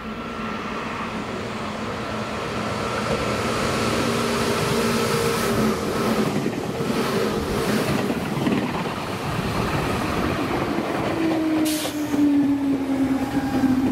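Electric train running past at speed, its sound building up through the passage. A steady humming tone from the train slides lower near the end.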